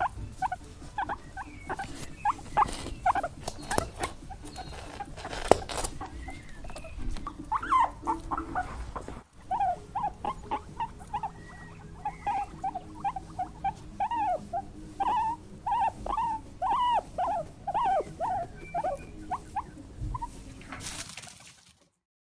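Small animals squeaking over and over in short, quick calls that rise and fall in pitch, several a second. They break off briefly about nine seconds in, then start again and stop near the end.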